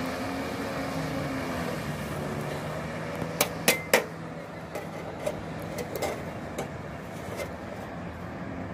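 Tea glasses and dishes clinking and knocking: three loud sharp clinks close together about three and a half seconds in, one of them ringing briefly, then lighter knocks. A steady low hum runs underneath.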